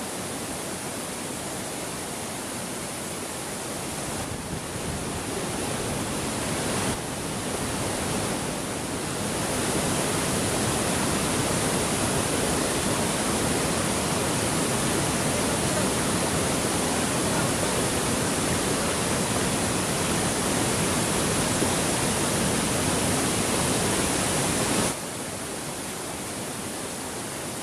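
Waterfall running in heavy monsoon flow: a steady, dense rush of water. It grows louder around ten seconds in and drops back sharply near the end.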